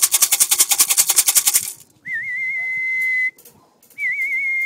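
A fast rattle of about a dozen sharp strokes a second stops suddenly near the middle. Then come two long, steady, high whistle notes, each opening with a short warble: a call whistle bringing racing pigeons in to trap.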